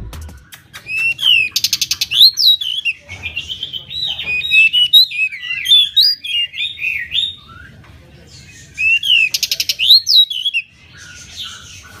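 Male pied bushchat (decu) singing loudly in two bouts: a quick jumble of whistled and chattering notes, each bout opening with a fast dry rattle, with a pause between them.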